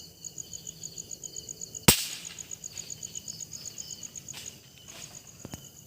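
A single sharp gunshot from a hunting gun about two seconds in. Crickets chirp steadily in a fast, even pulse underneath.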